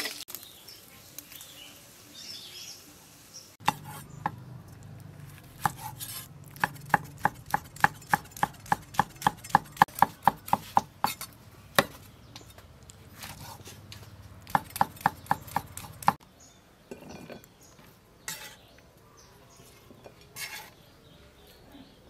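Cleaver slicing cooked sausages on a wooden chopping board: a run of sharp knocks of the blade on the board, about three a second at its fastest, starting a few seconds in and stopping about 16 seconds in, followed by a few scattered knocks.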